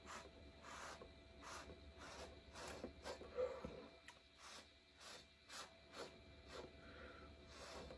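Faint, short puffs of breath blown through a drinking straw onto wet acrylic paint, about three puffs every two seconds, pushing the paint across the canvas in a Dutch pour.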